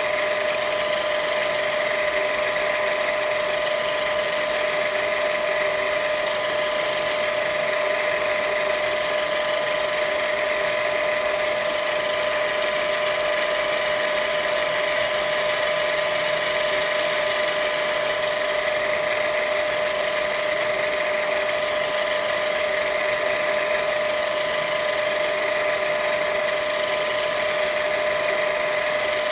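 Myford VMA milling machine running steadily, with a constant whine from its motor and gearing.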